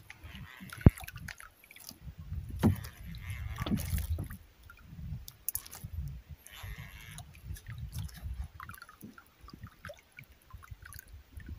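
Water slapping and gurgling against the hull of a small outrigger boat, with irregular low rumbling and one sharp knock about a second in.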